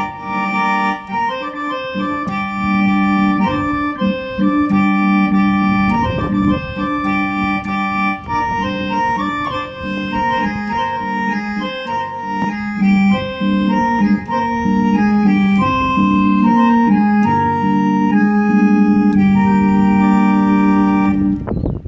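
Roland FR-1x digital V-Accordion playing a melody over sustained bass notes through its built-in speakers. The music cuts off sharply near the end.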